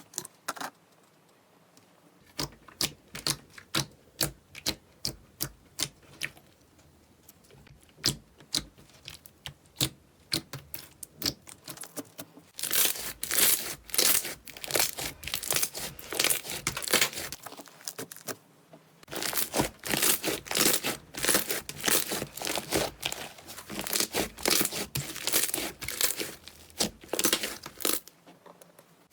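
Slime being squeezed and pressed by hand, giving crisp crackles and pops: scattered at first, then dense fast runs of crackling through the second half.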